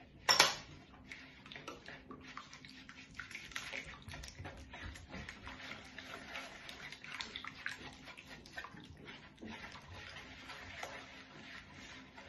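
Silicone spatula stirring a thin, wet batter in a wooden bowl: a steady wet sloshing and scraping full of small clicks. About half a second in, one brief sharp clack stands out as the loudest sound.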